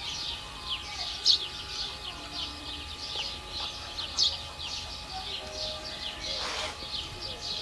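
Songbirds singing: many short, high chirps, each falling in pitch, repeating and overlapping.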